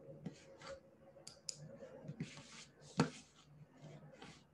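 Faint computer-mouse clicks and soft desk noises, with one sharper click about three seconds in.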